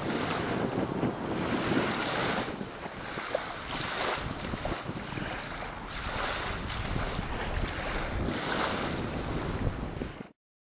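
Small waves washing in on a sandy shore, surging every couple of seconds, with wind buffeting the microphone as a low rumble. The sound cuts off abruptly near the end.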